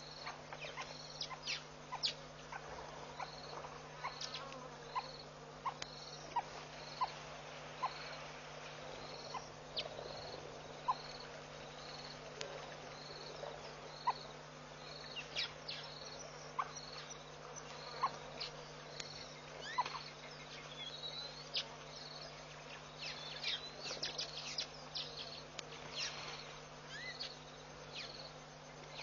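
Insect chirping steadily in the bush, a short high chirp repeating about twice a second, with scattered short, sharp chirps and calls in between over a steady low hum.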